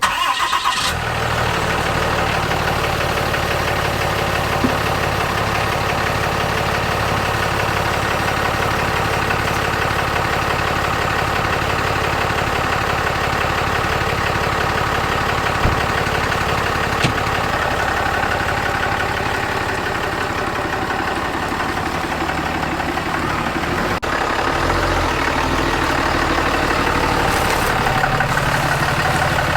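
Ram 2500's Cummins turbo-diesel engine idling steadily.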